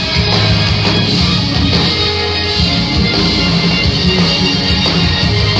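Live rock band playing a song, electric guitar and drum kit, loud and steady as heard from within the crowd at a small club.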